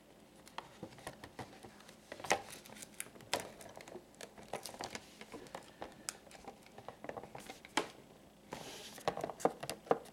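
Clear plastic blister pack being handled and pressed against its cardboard backing, crinkling with irregular sharp clicks and crackles. There is a brief denser rustle near the end.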